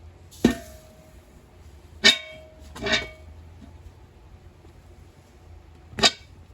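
Four sharp metallic clanks, each with a brief ringing tone: metal struck against metal during foundry work. Two come close together about two seconds in, and the last is near the end.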